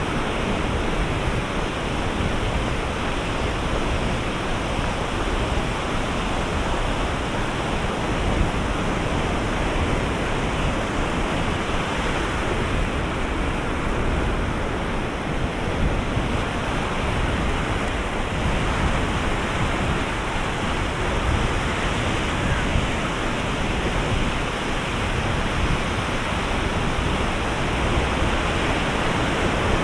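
Ocean surf breaking on a beach, heard as a steady, even wash of noise with no single wave standing out.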